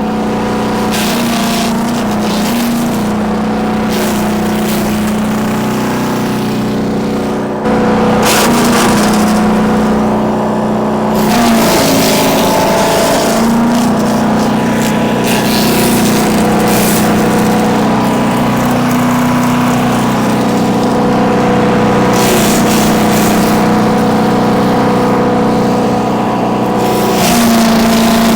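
Bilt Hard 3-inch wood chipper's 7.5 hp 224cc gas engine running steadily while branches are fed through, with irregular bursts of chipping noise and the engine note dipping briefly under load several times. It gets louder about eight seconds in.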